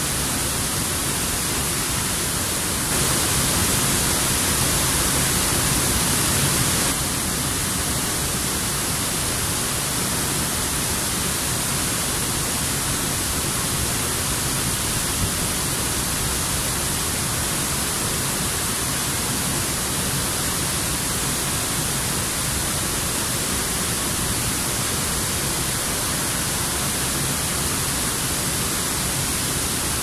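Steady rushing roar of a waterfall plunging into a pool, with water churning around nearby rocks; it swells slightly louder and brighter for a few seconds about three seconds in.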